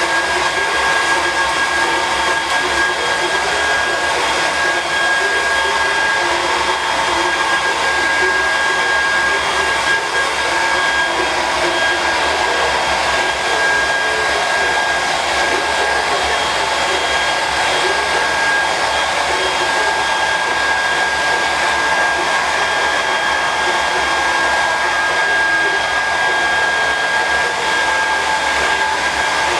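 Hand-held hair dryer blowing steadily, a loud even rush of air with a high steady whine that does not change, drying wet hair so the clippers can cut it.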